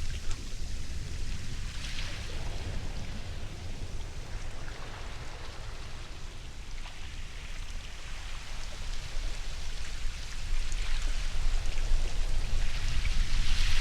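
Ocean surf: a steady wash of water noise over a low rumble, swelling louder about two-thirds of the way through.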